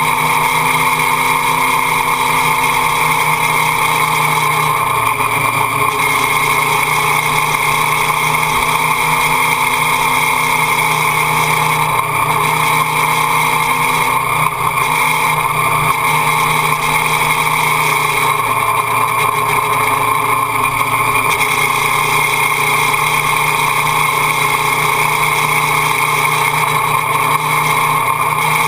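Motorcycle engine running at steady revs while riding, over a constant rushing noise, with no change in throttle.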